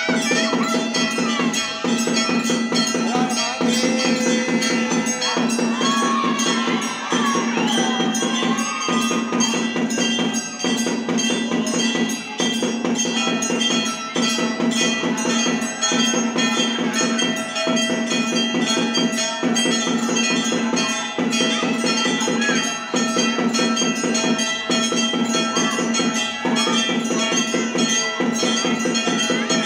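Temple puja bells and drums beaten in a fast, unbroken rhythm, with steady ringing bell tones over the strikes and a pattern that repeats roughly every two seconds.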